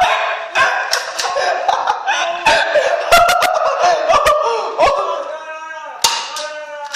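A string of irregular sharp cracks from BB guns firing and pellets striking, with loud voices yelling and yelping over them.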